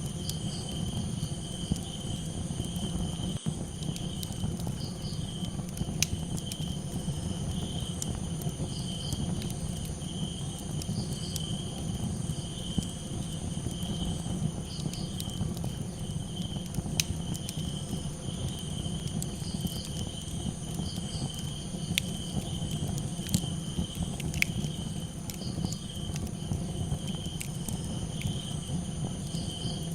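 Crickets chirping in a continuous pulsing trill over a campfire crackling, with scattered sharp pops above a low steady rumble of the fire.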